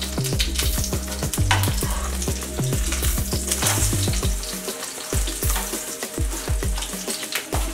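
Chickpea-batter omelette sizzling as it fries in oil in a nonstick frying pan, with a metal spatula sliding under it. Background music with a steady bass beat plays underneath.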